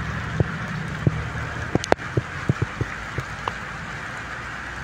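Steady hiss of rain falling on a wet street, with big drops plopping close by at irregular moments and one sharper click about two seconds in. A low rumble of traffic lies underneath.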